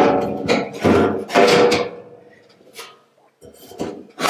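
Steel fuel tank being worked loose in the boot of a Triumph GT6 shell: metal scraping and clanking against the body, with a ringing tone for the first couple of seconds. It then thins to a few light knocks and clicks.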